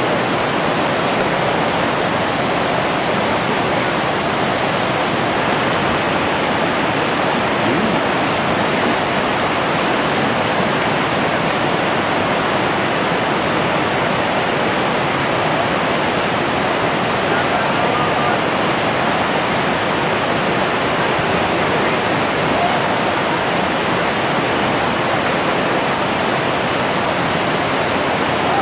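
Steady rush of a whitewater rapid, the river pouring over rock ledges and churning into white water.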